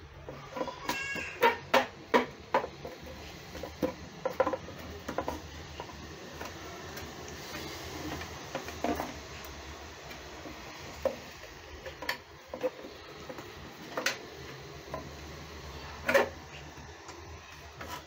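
Hard plastic clicks and knocks as the top housing of a Fantom canister vacuum cleaner is worked and pressed back down onto its body, scattered taps every second or so with a louder knock near the end.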